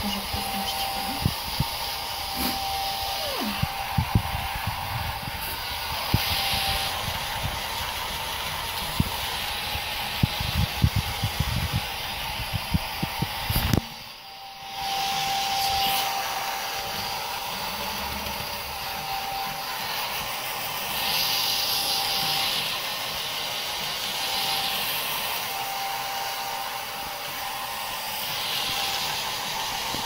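Hand-held hair dryer blowing steadily with a thin motor whine, drying a wet Pekingese puppy's coat. Irregular low thumps come through the first half. The sound dips sharply for about a second about halfway through, then comes back.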